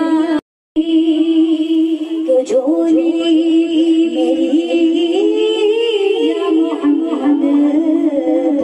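Several women's voices singing together without instruments, a devotional naat recitation with long held notes. A split-second gap of silence cuts in shortly after the start.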